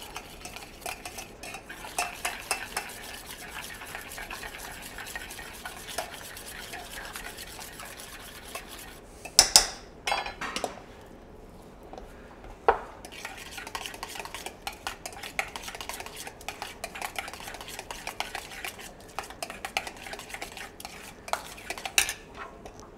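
Metal spoon stirring and scraping a thick egg-yolk mixture in a stainless steel bowl, a steady run of quick clinks and scrapes. There are a few louder knocks of metal on the bowl about halfway through and again near the end, and a quieter stretch just after the first knocks.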